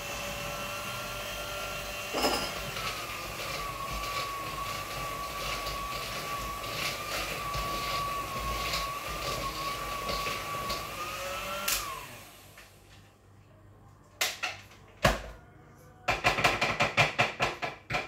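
Electric hand mixer running steadily with a high whine, its beaters clattering in a ceramic bowl of cake batter as raisins are mixed in. It switches off about twelve seconds in. After a couple of knocks, quick rhythmic clinking in the bowl follows near the end.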